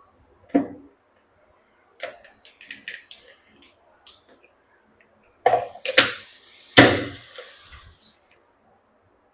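Blender jar being handled on its base between grinding runs: a knock, a run of light plastic clicks, then two sharp knocks.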